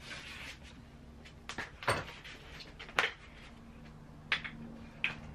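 A few sharp knocks and clunks, about four, spaced roughly a second apart, with some rustling in between, from someone handling things and moving about at a workbench. A steady low hum runs underneath.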